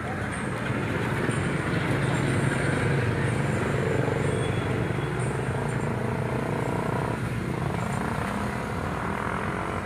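A motor vehicle engine running, with a low steady drone that grows louder a couple of seconds in and then slowly eases off.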